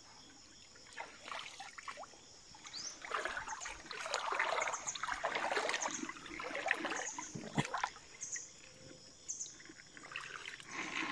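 Water splashing and trickling off and on, with scattered clicks, while crabs are caught by hand. A few short high chirps sound over it.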